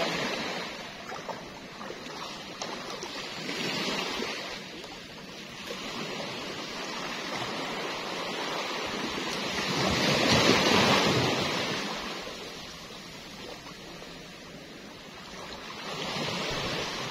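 Small sea waves washing in at the shoreline, a hiss that swells and fades every few seconds, loudest about two-thirds of the way through.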